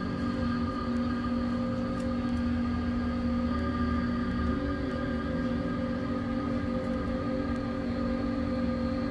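A steady machine hum with several constant tones, and a few faint light clicks over it.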